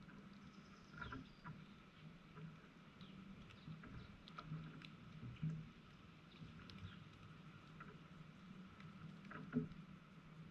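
Faint yard ambience: a steady low hum with scattered soft ticks and short chirps from small birds, and a thin high note near the start.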